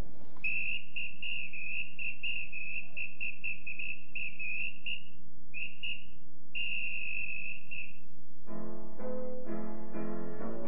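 A high, steady whistling tone with a slight waver, broken by brief dropouts and one longer gap, lasting about eight seconds. About a second after it stops, keyboard chords begin.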